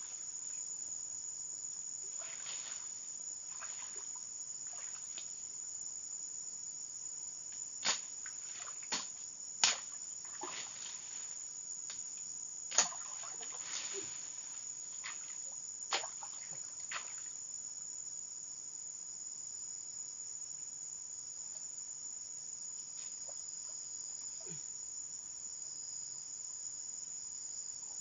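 Steady, high-pitched insect chorus. A handful of short, sharp knocks or snaps come between about eight and seventeen seconds in.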